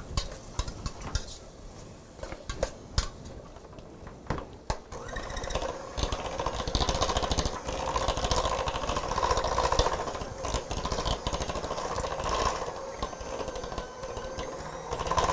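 Scattered taps and knocks against the mixing bowl, then about five seconds in an electric mixer starts and runs steadily, beating the flour mixture into gingerbread batter.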